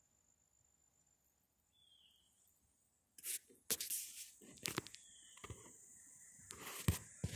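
Near silence for about three seconds, then a run of brief rustles and scrapes, a few sharp ones among them, like close handling noise.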